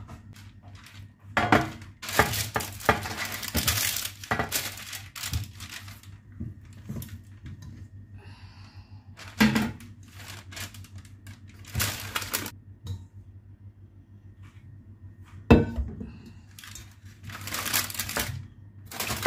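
A spatula scrapes brownie batter out of a stainless steel mixing bowl, with the bowl clattering and knocking against the baking sheet several times. Parchment paper crinkles near the end as it is handled.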